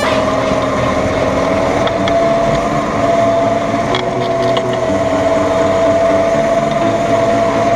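New Holland T4.95 tractor's four-cylinder diesel engine running steadily under load while pulling a two-furrow reversible plough through the soil, with a steady whine over the engine noise.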